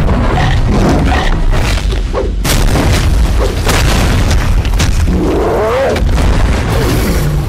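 Monster-fight sound effects: heavy booming impacts over a deep rumble, with dramatic music underneath. Between about five and six seconds in comes a creature's cry that rises and falls in pitch.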